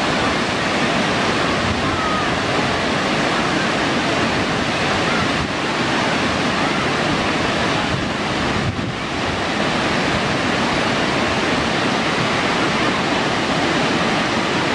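McArthur-Burney Falls: a loud, steady rush of falling water pouring into its plunge pool, with a brief dip a little past halfway.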